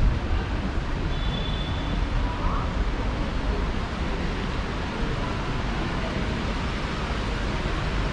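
Heavy rain on a city street with traffic: a steady hiss of rain and wet tyres over a low rumble.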